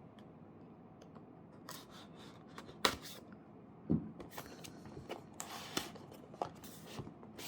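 A product box being handled and opened by hand: scattered taps and clicks, two sharper knocks about three and four seconds in, and patches of rustling and scraping.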